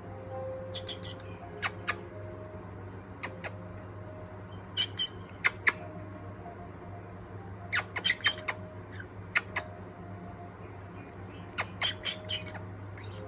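Pet parrot giving short, sharp squawks in scattered clusters, over a steady low hum.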